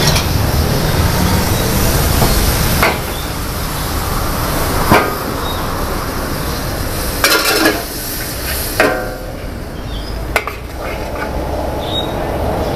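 A metal spatula scraping and tossing noodles in a large wok, with sizzling frying and a sharp clang against the wok every couple of seconds, over a steady low rumble.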